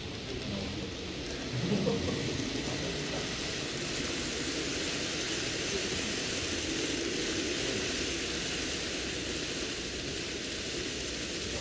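N gauge model trains running on the layout: a steady rolling hiss and rumble of small wheels on track and running motors, with a brief louder patch about two seconds in.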